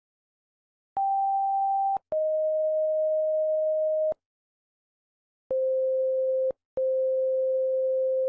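Pure electronic tones of a stand-by signal, stepping down in pitch. After about a second of silence, a one-second beep is followed by a slightly lower two-second tone, then a pause. Two still lower tones follow, the second held long.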